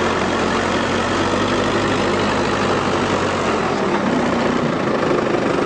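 An engine idling steadily, with its deepest hum dropping away about two-thirds of the way through.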